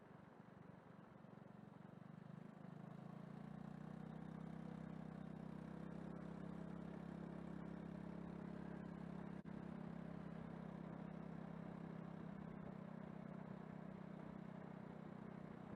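Faint, steady low hum of a running vehicle engine, growing louder over the first few seconds and then holding steady, with a brief click about nine and a half seconds in.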